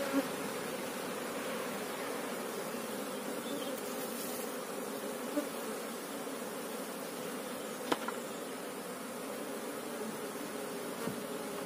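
Asian honey bees (Apis cerana) buzzing steadily in a dense mass around an opened hive and a lifted brood comb, with a few light knocks.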